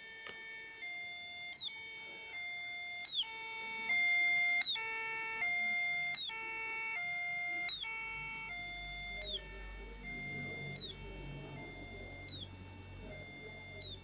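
Homemade two-tone electronic siren circuit sounding through a small loudspeaker. A steady electronic tone switches between a lower and a higher pitch about every three-quarters of a second, in a hi-lo police-siren pattern.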